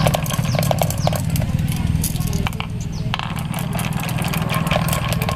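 Marbles clicking and clattering down a wooden marble run, many quick knocks, over a steady low motor drone.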